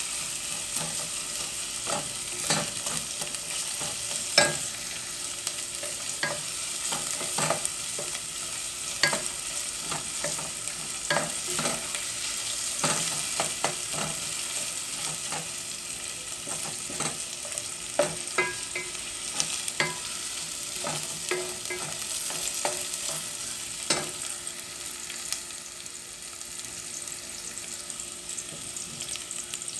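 Chopped onion sizzling in oil in a metal pot, stirred with a wooden spatula that knocks and scrapes against the pot in irregular clicks. The stirring knocks thin out near the end while the sizzle goes on.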